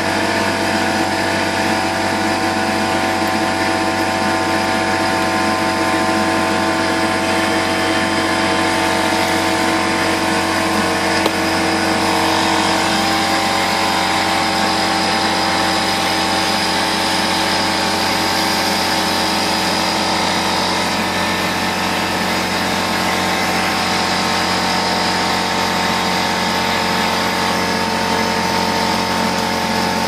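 Air compressor running steadily, its motor and pump charging the tank with air.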